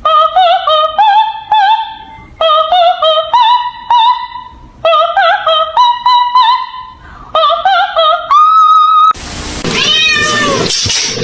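A short tune of sharp, pitched notes played in four repeating phrases, ending on one held note. About nine seconds in, it gives way to a cat yowling, with several wavering, drawn-out meows over a noisy background.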